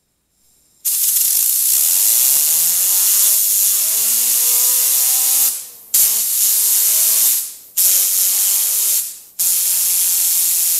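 Compressed air hissing from an air-compressor blow gun as it drives a homemade fidget spinner. The spinner's buzzing whine climbs in pitch as it spins up and sounds like a motorcycle. The air cuts off and comes back three times, giving four blasts.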